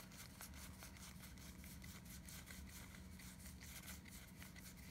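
Faint, irregular soft ticks of Magic: The Gathering cards being slid one by one through the hands, over a low steady hum.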